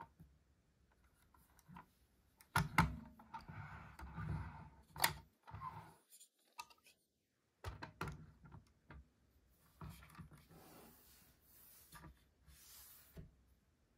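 Handling of a 1/24 diecast metal model van: small clicks and thunks as its opening doors and tailgate are worked, with rubbing and shifting of the model on the table between them. The sharpest clicks come about three and five seconds in.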